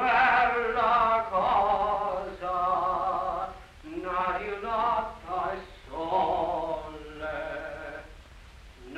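Male singing in long, wavering held notes, with short breaks about four and six seconds in and a softer stretch near the end.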